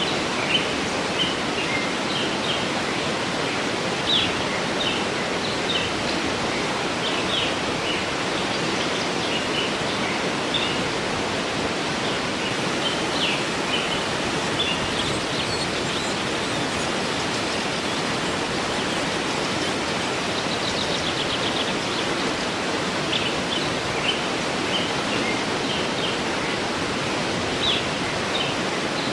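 Waterfall rushing steadily, with birds singing short chirps over it, scattered through, thinning in the middle and picking up again near the end.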